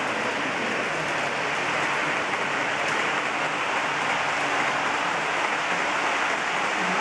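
Model trains rolling along the layout's track, a steady even rushing noise with no break.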